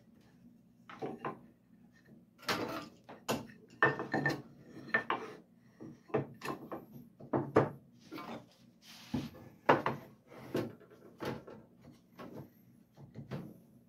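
Irregular wooden knocks and clicks as cherry boards are set into a wooden mitre box and a bar clamp is slid along and tightened on them, with a short scrape about nine seconds in.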